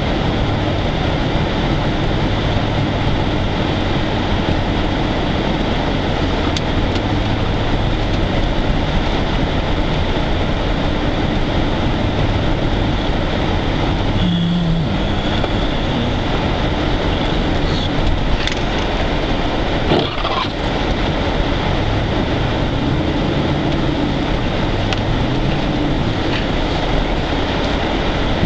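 A 4x4 vehicle driving through deep snow: a steady engine rumble that rises and falls in pitch, mixed with the continuous noise of the tyres and body pushing through the snow. There are a couple of brief knocks partway through.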